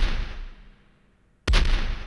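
Rifle salute: a volley of rifle shots fired nearly together, several cracks in a quick cluster about one and a half seconds in, each volley echoing and fading over about a second. The echoing tail of the previous volley dies away at the start.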